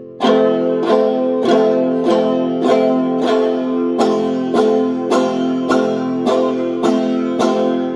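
Banjo played with the fingers striking down on the strings, a steady repeating pattern of about two sharp strikes a second over a ringing chord.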